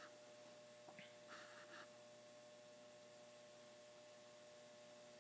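Near silence: room tone with a faint steady hum and a small click about a second in.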